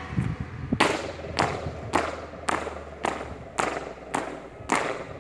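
A group of marchers stamping their shoes in step on a concrete court, about two stamps a second in a steady, even rhythm.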